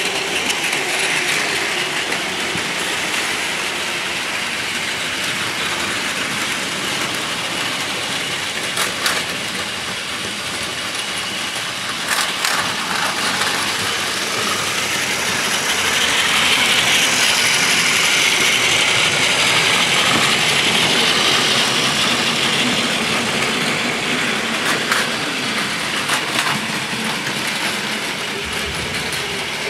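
Several Plarail battery-powered toy Shinkansen trains running on plastic track: a steady whir of small motors and rattle of wheels on the track, louder for several seconds in the middle. A few sharp clicks stand out.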